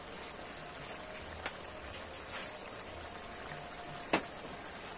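Chicken in a thin sauce simmering in a wok: a steady bubbling hiss with a few sharp pops, the loudest about four seconds in.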